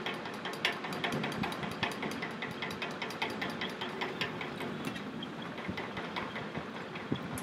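Rapid, uneven clicking, several clicks a second, over a low background rumble; the clicks thin out slightly in the second half.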